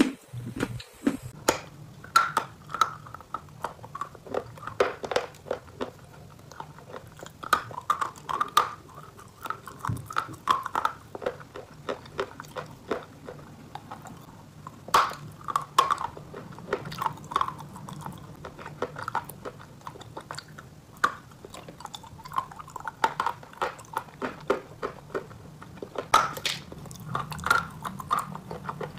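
Close-miked chewing of a dry piece of dark Ural black edible clay: an irregular run of sharp crunches and crackles, several a second, over a low hum.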